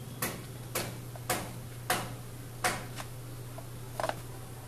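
Sharp light clicks, about two a second at first and spacing out toward the end, over a steady low hum.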